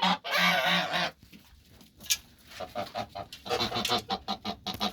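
Domestic waterfowl calling. A loud harsh call fills the first second, and after a short pause comes a quick run of short calls, about six a second.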